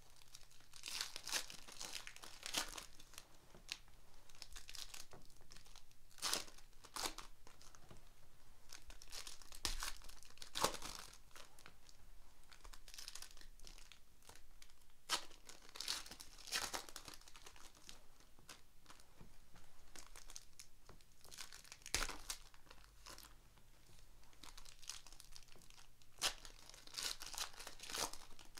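Foil trading card packs crinkling and tearing as they are handled and ripped open by hand, in irregular bursts.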